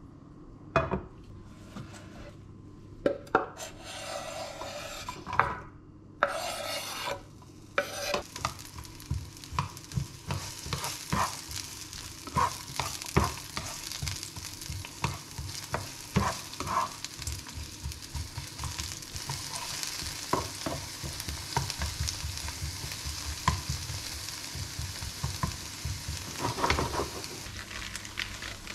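Diced onion frying in a nonstick pan as a spatula stirs it. The sizzle comes in two short bursts at first and then turns into a steady hiss, with frequent taps and scrapes of the spatula on the pan.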